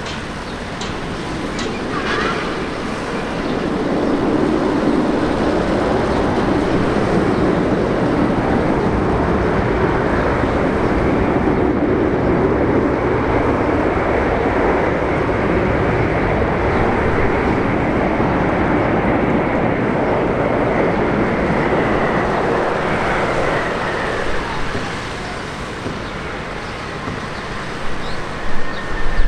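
Jet airliner's engines passing close by: a steady rush of engine noise that swells over a couple of seconds, holds for about twenty seconds, then eases off, with a thin whine that falls slowly in pitch near the end.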